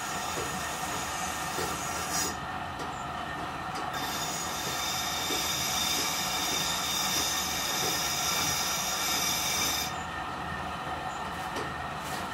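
Large grindstone turning under power with a steel axe blade held against it: a steady drone with a harsh, high-pitched grinding scrape. The scrape is loudest from about four seconds to ten seconds in, then drops back as the blade comes off the stone.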